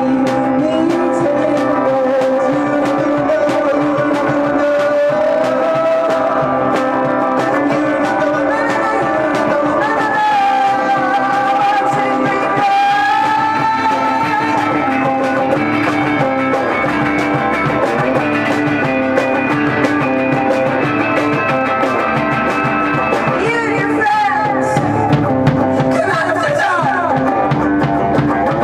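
Rock band playing live on electric guitars and bass guitar. Pitch bends in a guitar line come near the end.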